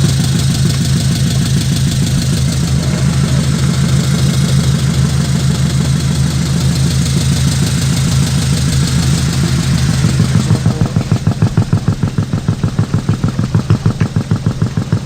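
Diesel truck engine sound idling steadily, as played by an RC dump truck's sound unit, with a low pulsing beat that grows more pronounced about ten seconds in.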